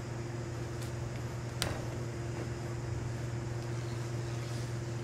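Steady low electrical hum, with a short click about a second and a half in.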